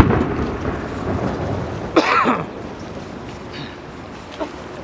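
Aerial fireworks shells going off: a sharp bang right at the start, a short louder rush of noise about two seconds in, and a smaller pop near the end, over a low rumble.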